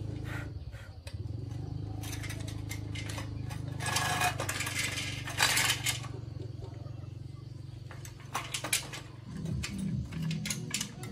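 Metal clinks and scrapes of bicycle spokes and pliers being worked on a wheel, with a denser stretch of rattling and scraping about four to six seconds in, over a steady low hum.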